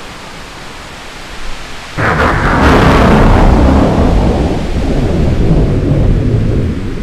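Thunderstorm: steady rain hiss, then a loud thunderclap about two seconds in that rolls on as a long rumble, slowly fading.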